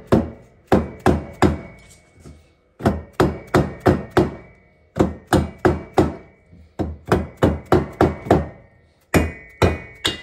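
An orange soft-faced mallet repeatedly tapping an aluminium VW dual-carburettor intake manifold down onto the cylinder head's studs. The blows come in quick runs of three to six, about three or four a second, each with a brief metallic ring.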